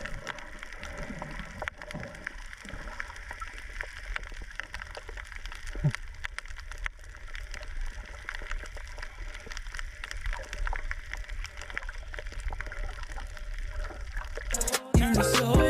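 Underwater sound picked up by a camera over a coral reef: a low, muffled water murmur with a dense, irregular crackle of small clicks. Background music starts again near the end.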